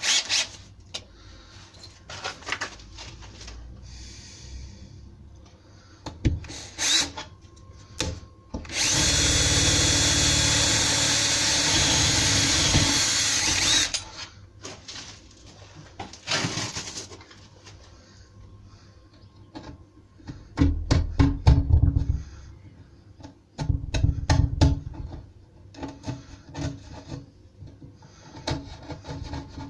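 Power drill with a brad point bit boring a keyhole hole in a wooden door, running steadily for about five seconds near the middle. Shorter drill starts and handling clicks and knocks come before and after it.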